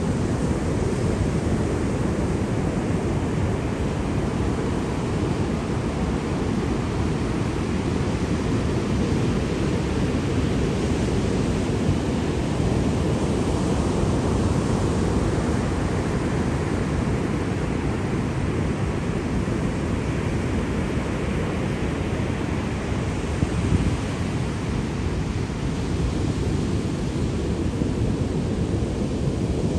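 Ocean surf: waves washing in as a continuous rush that slowly swells and eases every several seconds, over a steady deep rumble.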